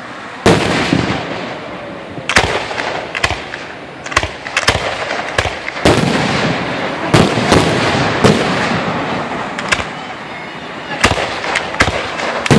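Aerial fireworks shells bursting overhead in a rapid series of sharp bangs, one to two a second, with crackling between the reports. The first loud bang comes about half a second in.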